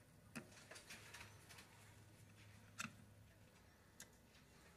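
Faint scattered clicks and light scrapes of a screwdriver turning screws in a fishing reel's side plate, the loudest click about three seconds in.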